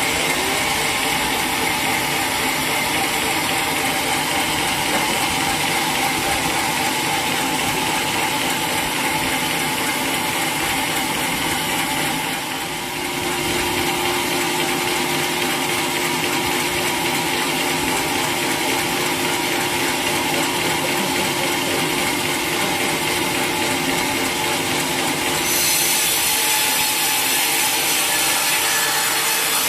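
Sawmill machinery running steadily, a dense mechanical clatter and whir. It dips briefly about halfway through, and near the end turns brighter and a little louder, in keeping with the saw cutting into the wood.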